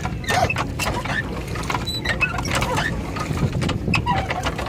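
Irregular mechanical clicking and rattling from a small leisure boat's pedal drive, over a steady low rumble.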